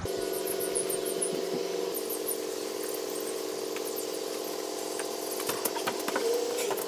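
A steady low hum with a few faint high chirps, then several knocks and a clatter near the end as a small homebuilt dinghy is set down on wooden sawhorses.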